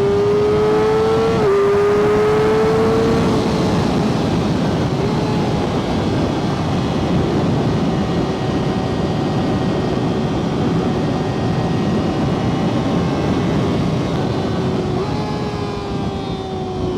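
Kawasaki ZX-6R 636 inline-four engine pulling hard under load. The revs climb, drop at a gear change about a second and a half in, climb again, then hold steady; near the end they jump up and fall away. The clutch is holding without slipping after the cable adjustment, and there is heavy wind rush over the microphone.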